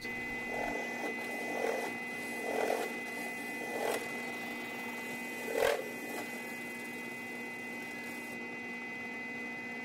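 Benchtop drill press motor running steadily, with about five brief swells in the first six seconds as the bit is fed down through holes in a thin aluminum skin to final-size them.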